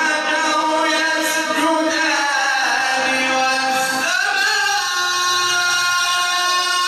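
A man's melodic Quran recitation: one voice drawing out long, ornamented notes that slide in pitch, moving to a new held note about four seconds in.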